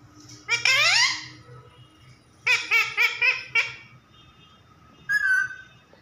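Rose-ringed parakeet imitating human laughter: a drawn-out rising call about half a second in, then a quick run of about five short 'ha' notes a couple of seconds later, and a short squawk near the end.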